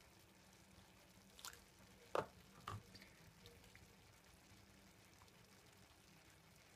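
Teaspoon scooping wet tomato pulp out of a tomato into a plastic container: three short, soft wet taps in the first three seconds, the middle one loudest, and near silence otherwise.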